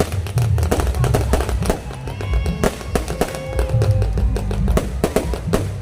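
Fireworks going off in rapid, irregular bangs and crackles, over loud music with a heavy bass.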